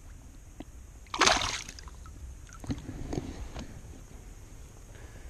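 A fish splashing away as it is released by hand at the water's surface: one sharp splash about a second in, then a few smaller splashes and drips.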